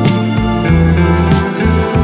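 Instrumental background music led by guitar over a strong bass line, with a cymbal-like hit at the start and another about a second and a half later.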